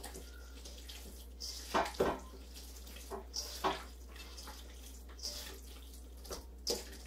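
Hands mixing and squeezing sticky cinnamon-coated dough chunks in a stainless steel mixing bowl to coat every piece, giving a series of short, irregular soft squishes.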